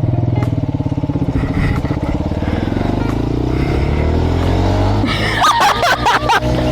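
A 125 cc motorcycle engine running under way, its note rising and falling as it pulls. About five seconds in, a voice calls out briefly over the engine.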